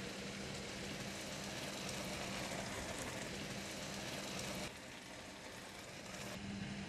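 Noodles and bean sprouts sizzling as they are stir-fried in a nonstick pan and turned with a silicone spatula, over a steady low hum. The sizzle dips for about two seconds near the end, then comes back.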